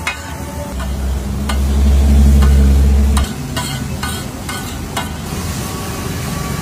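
Pav bhaji sizzling on a large flat tawa while a metal spatula scrapes and knocks against the griddle in a series of sharp clicks. A loud low rumble sounds underneath from about a second in to about three seconds in.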